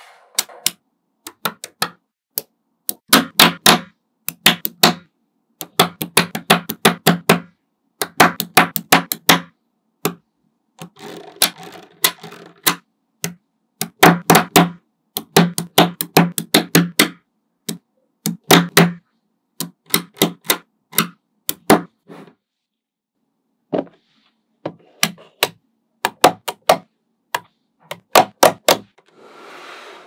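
Small magnetic balls clicking sharply as slabs of them are snapped onto a growing structure, in quick runs of clicks with short pauses between.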